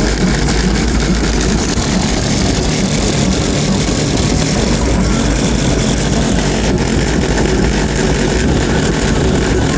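Loud car audio system playing bass-heavy music through subwoofers driven by a Rockford Fosgate T2500-1bdCP amplifier (3340 W RMS in total), heard from outside the Vauxhall hatchback it is fitted in.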